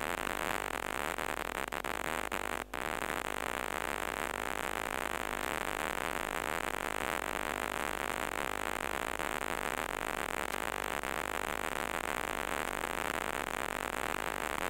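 Steady, loud hiss of recording noise, static-like and even throughout, cutting out for an instant about three seconds in.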